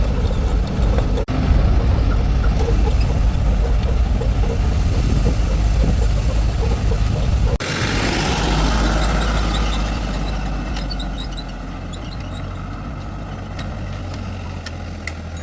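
Heavy vehicle engine running with a loud low rumble. About seven and a half seconds in the sound changes abruptly and a hiss rises for a couple of seconds; the engine sound then drops lower and fades toward the end, with a few light clicks.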